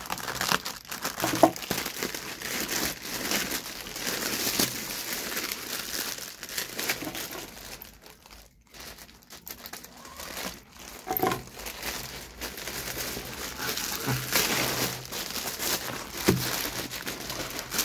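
Packaging of a large parcel crinkling, rustling and tearing as it is unwrapped by hand, with a brief lull about halfway through.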